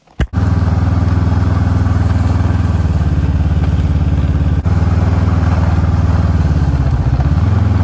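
Ski-Doo snowmobile engine running steadily as the machine rides along a trail, with a brief dip in pitch near the end.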